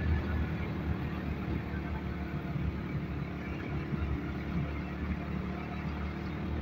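Motorcycle engine running steadily while riding along at an even speed, with a constant low drone and no change in pace.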